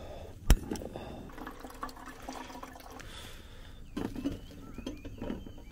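A SOTO spider-leg camping gas stove being lit with its piezo igniter: one sharp click about half a second in, then the steady hiss of gas burning. A few light knocks come near the end.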